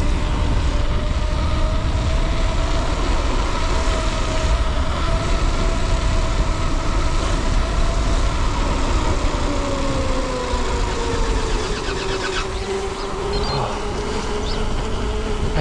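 Mountain bike rolling fast downhill, with heavy wind rumble on the helmet camera's microphone. A steady hum from the tyres drops in pitch from about eight seconds in as the bike slows, then levels off.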